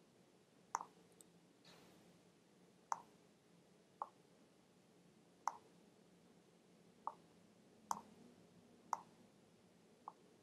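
Computer mouse button clicks, about eight sharp single clicks spaced irregularly a second or so apart, over faint room tone.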